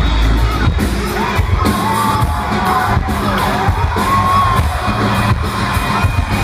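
Live indie band playing loudly, heard from the front of the stage: a steady drum beat and bass under a gliding sung melody, with whoops from the crowd.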